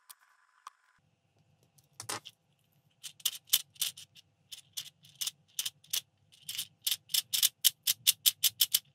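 Sharp clicks and light rattles of PLA crankcase parts and steel bolts being handled and fastened. They start sparse and come in quick runs of about four to five a second in the second half, over a faint low hum.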